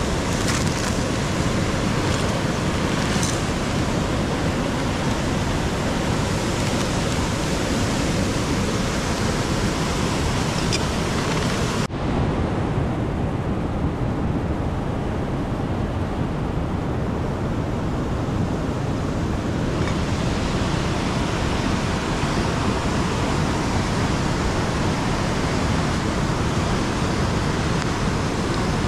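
Steady loud rush of a nearby river flowing over rocks. About twelve seconds in there is a sudden click, and the rush sounds duller for several seconds before it brightens again.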